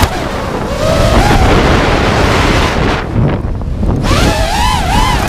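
Five-inch FPV quadcopter's Lumenier 2206 2350kv brushless motors and three-blade props whining, the pitch sweeping up and down with the throttle and easing off briefly around the middle. Heavy wind noise on the onboard microphone runs underneath.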